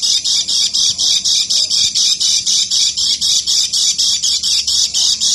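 Kecial kuning (white-eye) giving its fast chattering 'ngeker' call: an unbroken string of quick high notes, about six a second.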